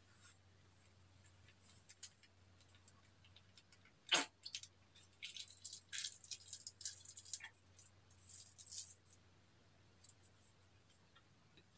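Plastic piping bag crinkling and crackling in a run of short ticks as hands squeeze it, after a single sharp click about four seconds in.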